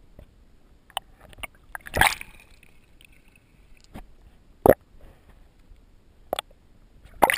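Muffled underwater sound picked up by a submerged camera: faint low water noise with scattered sharp clicks and knocks, about seven of them, the loudest about two seconds in and again near the five-second mark.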